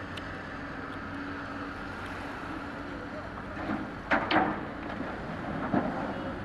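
Steady engine hum from the working ship and excavator, under wind on the microphone. A few sudden loud sounds stand out a little past the middle, with one more a second or so later.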